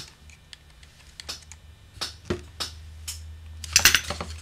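Small, scattered clicks and ticks from a screwdriver working an adjustment screw in the metal keywork of an oboe's bottom joint. Just before the end comes a quick, louder clatter as the screwdriver is laid down on the wooden bench.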